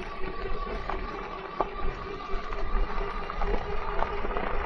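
Crooked Path Rogue electric bike riding over a rough gravel path: a steady electric motor whine over low rumble, with scattered clicks and rattles from the tyres and frame over the bumps.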